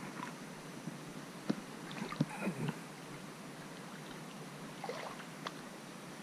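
Legs wading through shallow creek water, irregular sloshing and swishing with a few sharp knocks in between, busiest in the first half.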